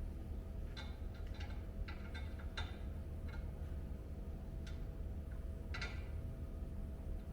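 Hand tools working on metal: scattered, irregular light metallic clicks and taps, about ten of them, bunched in the first three seconds with one more strong click near six seconds, over a steady low hum.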